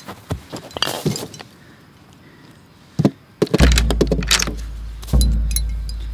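Footsteps and rustling in dry grass and a wooden knock at the chest, then deep low booms from the film's score, coming about every second and a half and each dying away slowly, with metallic clinks over the first boom.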